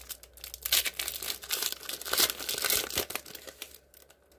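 Foil wrapper of a Panini Prizm football card pack crinkling and tearing as it is ripped open by hand, the crackle dying away near the end.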